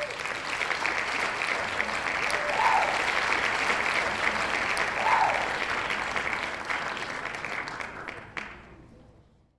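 Crowd applauding, a dense clapping patter that fades away over the last couple of seconds.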